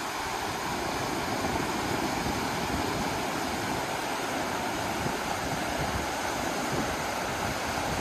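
Bukhtarma, a fast mountain river, rushing and churning over a stony bed and shallow rapids in a steady, even wash of noise.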